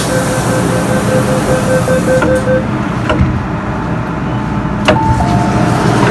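MTR M-Train door-closing warning: a rapid run of beeps in two pitches that stops about two and a half seconds in, then the sliding doors shut with a sharp clunk about five seconds in, over the steady low hum of the standing train.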